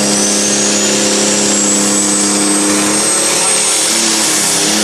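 Pro Stock pulling tractor's turbocharged diesel engine running flat out under full load as it drags the sled, with a high turbo whistle climbing steadily in pitch.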